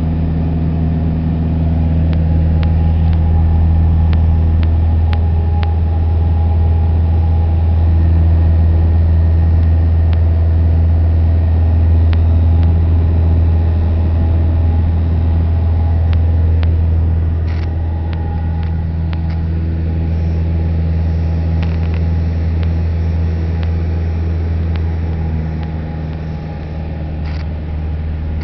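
Cessna 172F floatplane's 180-horsepower engine and propeller droning in flight, a steady low hum heard from inside the cabin. The drone eases off a little about two-thirds of the way through and again near the end.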